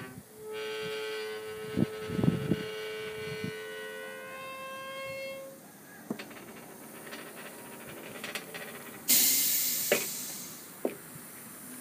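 Workshop machinery with a steady whine and scattered metallic clicks, then a sudden loud burst of hissing air about nine seconds in that fades away over about two seconds.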